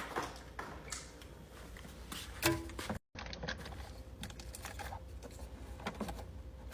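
Rapid light clicks and knocks of plastic food packaging and containers being handled and set down while restocking a refrigerator, with a brief dropout about three seconds in.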